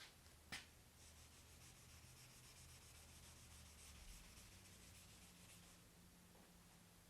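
Faint rubbing strokes of a hand sanding block on the primed body of a Porsche 911, running for a few seconds and stopping near the end. A single sharp click sounds about half a second in.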